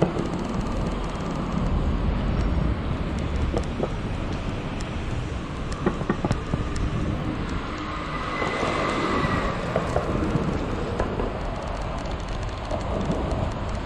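Oxelo kick scooter's wheels rolling over stone paving slabs, a steady low rumble with scattered clicks, under street traffic noise. A brief higher tone sounds about eight seconds in.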